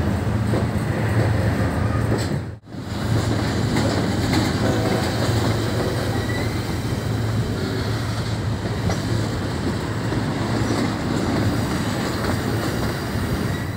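Double-stack container freight train rolling past, a steady rumble of wheels on rail joints. The sound breaks off for an instant about two and a half seconds in.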